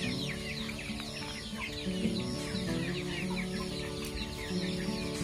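A flock of young broiler chickens peeping and cheeping without a break, with many short, high, downward-sliding calls overlapping.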